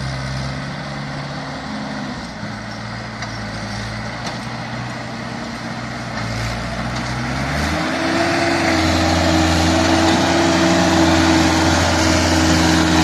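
Mahindra 575 tractor's diesel engine pulling a loaded trailer through soft sand. About two-thirds of the way in, the engine note steps up in pitch and gets louder, then holds steady.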